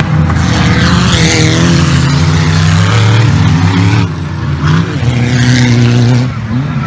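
Off-road racing 4WD engine running hard, its pitch rising and falling, with two brief let-offs, about four seconds in and near the end, each followed by a pick-up, over a steady hiss.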